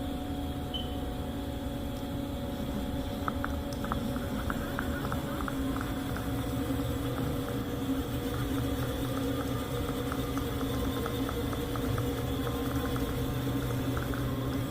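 Steady machinery hum made of several even tones, with many light, irregular ticks coming in from about three seconds in.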